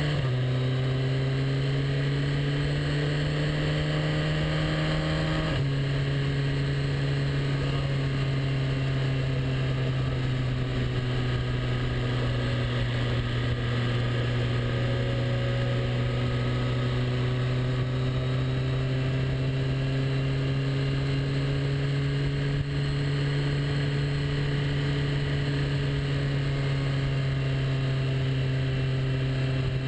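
Motorcycle engine running at steady road speed, with wind rushing past the bike-mounted camera. The engine note climbs for the first few seconds, then drops sharply about five seconds in with an upshift, and holds fairly even afterwards.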